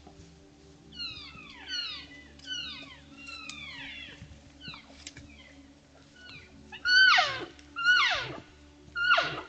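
Elk mewing, the contact calls that cows and calves in a herd trade with one another: a string of high, squealing calls that each slide steeply down in pitch, several faint ones at first and three loud ones near the end.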